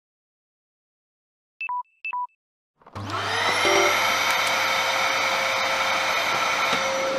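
Two short electronic beeps, then a vacuum cleaner motor switches on about three seconds in, spinning up to a steady high whine and running on.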